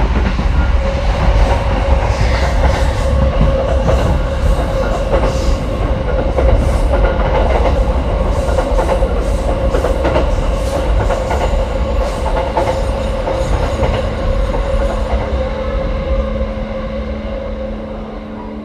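Electric locomotive and passenger coaches rolling in close alongside the platform: heavy wheel rumble with many sharp clicks over the rail joints and a steady hum. It grows gradually quieter over the last few seconds as the train slows for its stop, and a lower steady tone comes in near the end.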